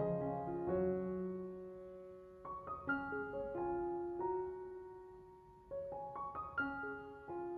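Background piano music: a slow, gentle melody of notes and chords that strike and slowly fade, with fresh groups of notes about a second in, near the middle and toward the end.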